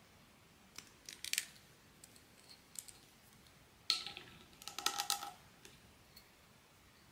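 Blind box packaging handled by hand: a short cluster of clicks and crinkles about a second in, a sharp snap near four seconds, then a denser second of crinkling.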